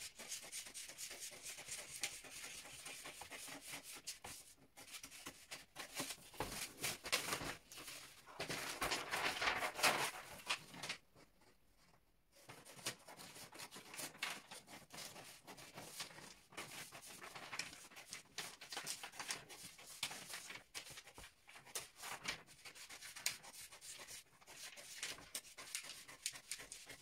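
Scissors cutting through a large sheet of pattern paper: repeated crisp snips mixed with paper rustling, with a short pause about eleven seconds in.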